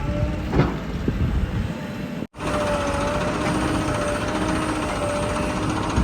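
Heavy diesel earthmoving machinery running steadily, with a steady whine over the engine. There is a clank about half a second in, and the sound cuts out for a moment a little over two seconds in.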